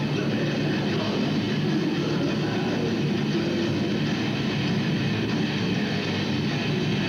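Metal band playing live: distorted electric guitars, bass and drums in a dense, unbroken wall of sound.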